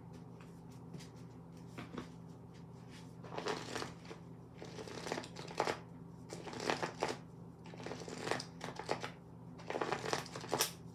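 A deck of tarot cards being shuffled by hand: several short rustling bouts of shuffling, starting about three seconds in.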